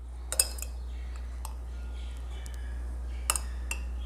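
A metal spoon clinks against a glass jar and a ceramic bowl while scooping thick sweet bean sauce. There are two sharp clinks, one shortly after the start and one near the end, with lighter taps between, over a low steady hum.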